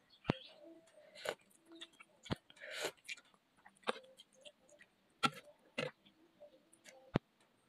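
Person eating noodle soup with a plastic spoon: soft chewing and mouth sounds, broken by several short sharp clicks and taps.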